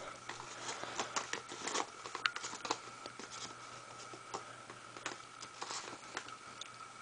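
Light irregular clicks, taps and rustles of fireworks packs being handled, over a faint steady hum.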